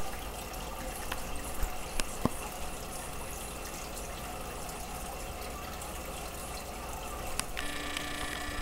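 Aquarium water bubbling and trickling: a steady running-water noise with a few faint clicks. A set of steady tones comes in near the end.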